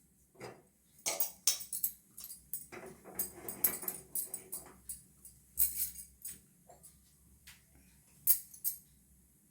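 Irregular clinks and knocks of metal kitchen utensils and cookware being handled, a scatter of short sharp sounds with quiet gaps between.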